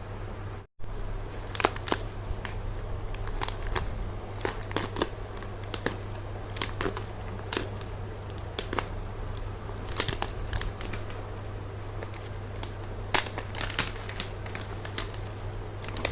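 Packaging crinkling and rustling as it is handled and opened, in irregular sharp crackles, over a steady low hum. A brief dropout comes just under a second in.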